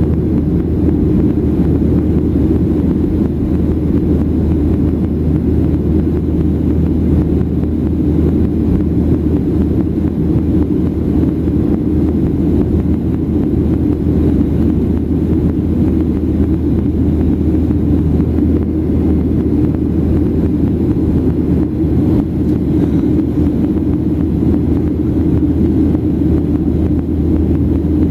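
Steady engine and airflow noise inside the cabin of a Boeing 737-800 in flight, heard as a deep, even rumble from its CFM56 turbofans with no change in level.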